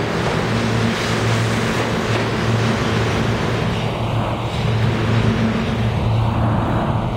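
New York City subway train in an underground station, running along the track with a continuous rumble of wheels on rail and a steady low hum.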